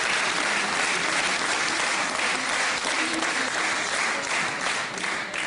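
Studio audience applauding steadily, dying away at the very end.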